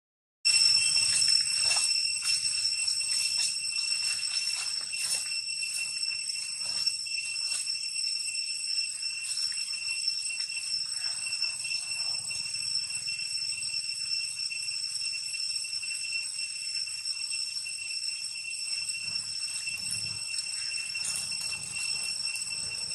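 An outdoor insect chorus of cicadas droning steadily in several high tones, cutting in abruptly about half a second in, with scattered faint rustles and clicks of dry leaves underneath.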